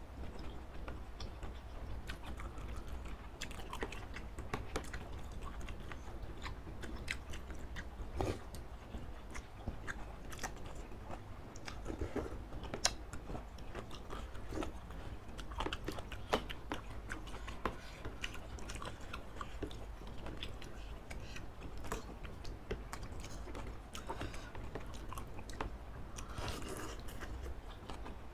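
Close-miked eating of spicy noodle soup with baby octopus: chewing, slurping of noodles and broth, and many short clicks of metal spoons and forks against the dish.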